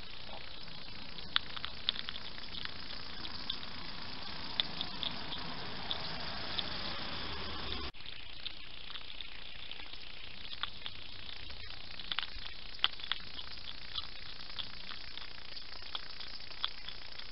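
Hedgehogs crunching and chewing food at a feeding dish: irregular sharp clicks and crackles over a steady hiss. There is a brief drop-out about eight seconds in.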